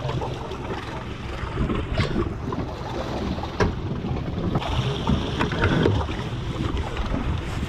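Wind buffeting the microphone on an open boat at sea, a gusty low rumble, with two sharp knocks about two seconds and three and a half seconds in.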